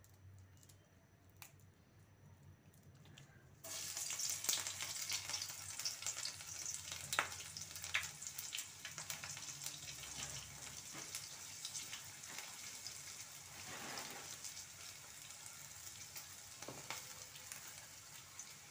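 Garlic cloves hitting hot oil in a non-stick kadai: after a few quiet seconds the oil bursts into sizzling, with scattered pops and crackles, then settles into a steady frying sizzle that slowly eases.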